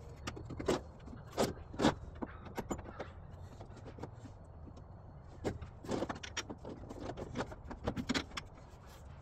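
Scattered metallic clicks, knocks and clanks from a front strut assembly and its clevis fork being worked into place by hand in the wheel well. The knocks come irregularly, with a cluster of sharper ones about a second in and another run in the second half.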